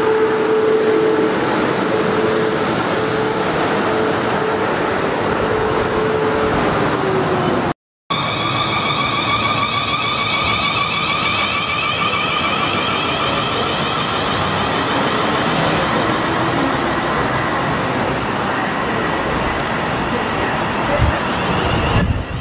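A South Western Railway electric multiple unit running close by with a steady traction whine that dips in pitch, then, after a brief cut, a Class 450 Desiro electric multiple unit whose traction whine sounds as several steady high tones over the rumble of wheels on rails.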